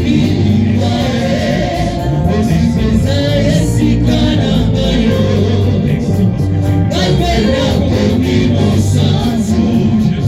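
Gospel music with a congregation or choir singing over a steady band accompaniment.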